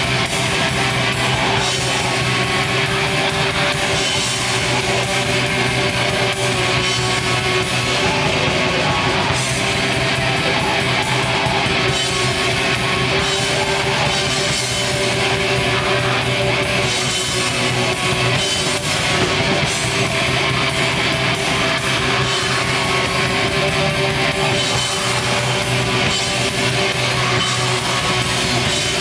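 Black metal band playing live: loud, distorted guitars sustained over drums, with fast, even cymbal strokes running through.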